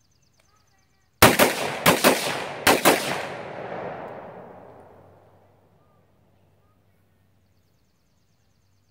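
Bravo Company 11.5-inch AR-15 short-barreled rifle fired in a quick string of shots, in pairs, over about two seconds, with a long echo rolling away and fading over the next few seconds.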